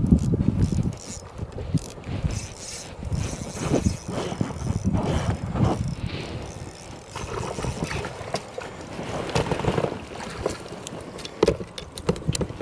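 Spinning reel being cranked to wind in a hooked trout, its gears and pawl clicking and whirring unevenly, with scattered handling knocks.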